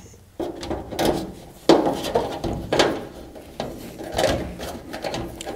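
A front lip spoiler being handled and pushed up against a car's front valance: irregular knocks, scrapes and rattles of the lip bumping and rubbing against the body.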